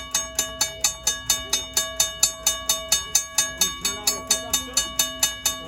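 Chicago Railway Signal & Supply Company Style "U" mechanical railroad crossing bell ringing steadily, about four strokes a second, each stroke ringing on with several steady tones.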